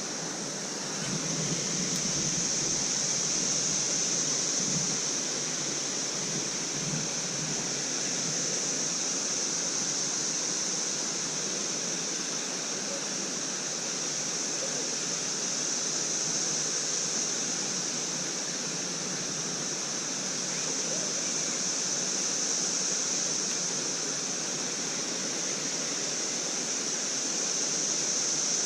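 Chorus of periodical cicadas: a continuous high-pitched drone that swells and eases slowly, with no breaks.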